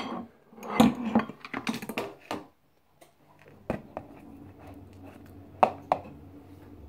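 A metal spoon and sieve clinking and tapping against a glass jar and a plastic mixing bowl as baking powder is measured out. A cluster of small knocks comes in the first couple of seconds, then two sharp taps a little before the end.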